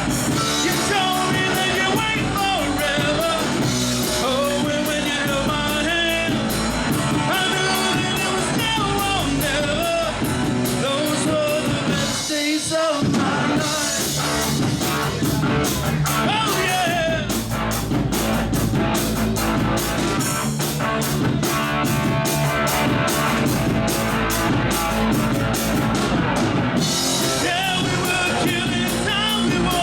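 Live rock band playing: a singer over guitar and drums, with a brief break a little before halfway, then a passage of steady drumming with little singing before the vocals come back near the end.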